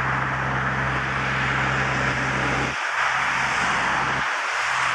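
Airbus A340-600 on pushback: a steady rushing jet noise with a low steady hum underneath that drops out briefly twice, about three seconds in and again near the end.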